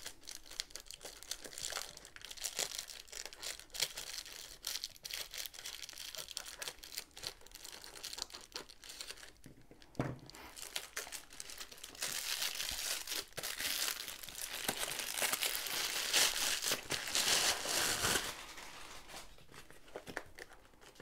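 A black plastic mailing bag crinkling and tearing as it is opened by hand, in dense crackles with a sharp knock about halfway. Past the middle comes a louder, continuous plastic rustle lasting several seconds as the boxed kit is pulled out.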